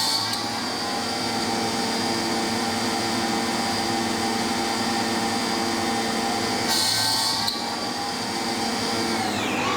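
Solid carbide drill bit drilling metal in a machine tool, the spindle running steadily, with a short louder hiss about seven seconds in. Near the end a high tone falls in pitch as the spindle slows.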